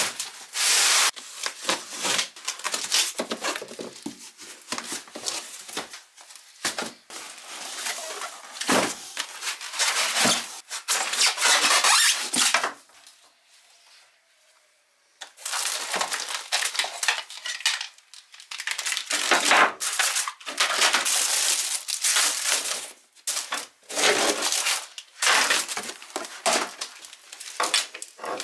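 Cardboard box and plastic packaging being handled: irregular bursts of rustling, crinkling and scraping as parts and cables are lifted out, with a short lull about halfway through.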